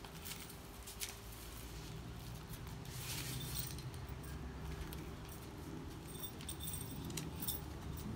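Heavy canvas being unrolled and spread out on a concrete driveway: soft rustling and scraping, with scattered light clicks and clinks, a cluster of them near the end.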